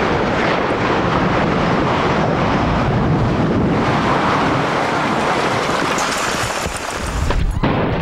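Concrete silos collapsing after an explosive demolition blast, heard close up: a loud, continuous rumbling roar of falling rubble and rushing dust, thinning briefly about seven seconds in.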